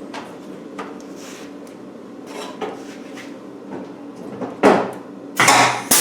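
Metal clinks and clatter of tools and aluminium panels being handled, over a faint steady hum, then a loud sharp crack about 4.7 s in and a louder, longer burst of noise near the end.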